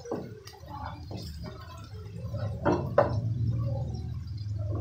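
Wooden spatula stirring and scraping chopped onions frying in oil in a nonstick wok, with scattered scrapes and soft knocks against the pan, the loudest about three seconds in, over a low steady hum.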